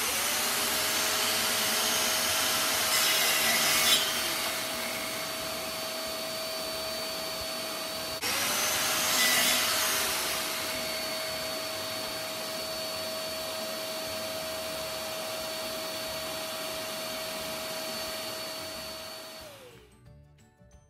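Plunge-cut track saw running with its dust extractor, cutting a board along the guide rail: a steady motor tone under a rushing sound, with louder rasping as the blade goes through the wood about 4 s in and again around 9 to 10 s. The sound breaks off and starts again about 8 s in, and near the end the motor winds down and stops.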